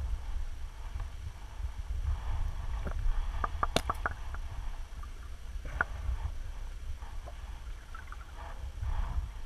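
Muffled underwater sound picked up by a camera in its housing: a steady low rumble of moving water and handling, with a quick cluster of sharp clicks about four seconds in and a single click near six seconds.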